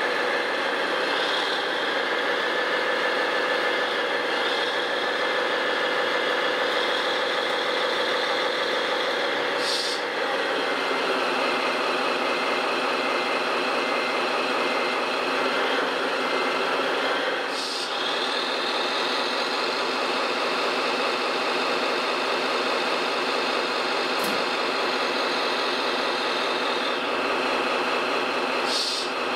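Heavy diesel engine sound from the RC construction machines, running steadily. Its pitch and tone change about ten seconds in and again near eighteen seconds, each change marked by a short burst of noise.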